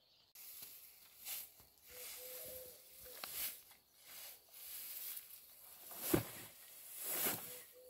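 A pitchfork raking up freshly cut alfalfa and tossing it into a wheelbarrow: repeated rustling swishes of the wilted hay, with a heavier thump about six seconds in as a forkful lands in the barrow.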